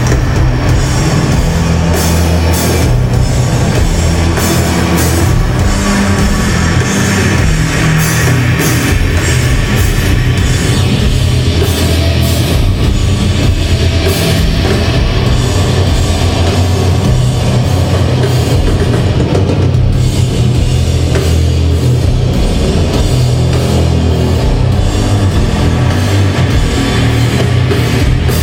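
Heavy metal band playing live, loud and bass-heavy: distorted electric guitars and bass holding low notes over a drum kit with regular cymbal hits.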